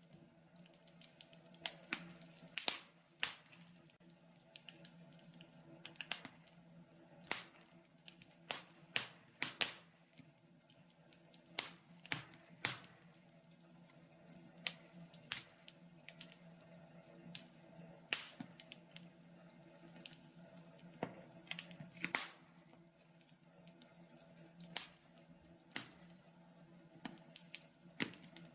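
Wood fire crackling in a fireplace: irregular sharp pops and snaps, some in quick clusters and others spaced out, over a faint steady hum.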